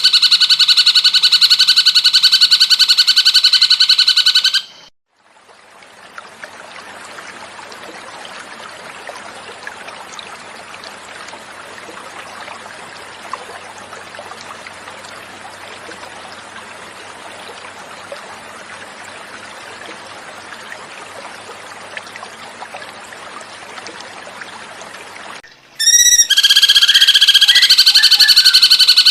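Recorded cucak cungkok bird call, loud and fast-repeating, cuts off after about four and a half seconds. About twenty seconds of steady running-water sound follow as a pause, then the bird call starts again near the end.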